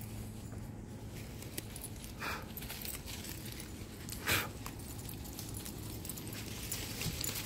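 Dogs moving about in woodland undergrowth and leaf litter, quietly. Two short brief sounds, about two and four seconds in, the second louder, lie over a faint steady low hum.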